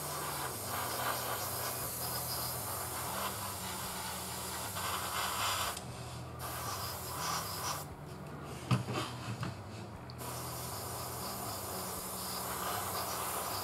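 Airbrush hissing as it sprays thinned paint. The spray stops briefly about six seconds in and again for about two seconds a little later, with a few light knocks around nine seconds in.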